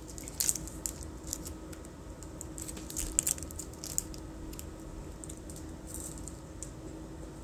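Plastic wrapper of a chocolate wafer bar crinkling and tearing as it is opened, in quick sharp crackles that are busiest in the first four seconds and then thin out to a few scattered clicks.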